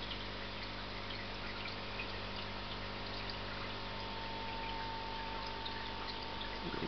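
Aquarium filter running: a steady hiss of trickling, dripping water with a faint steady hum underneath.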